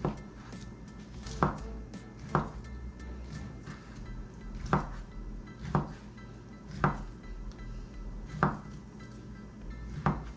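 Knife chopping down onto a cutting board: eight separate sharp knocks at uneven intervals about a second apart, over faint background music.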